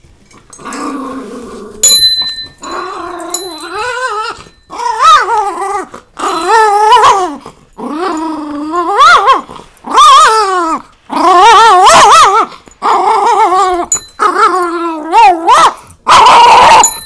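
Miniature schnauzer growling and barking in about ten drawn-out, wavering bouts, an angry, yelling kind of growl. A small bell rings out about two seconds in and briefly again later as the dog strikes it.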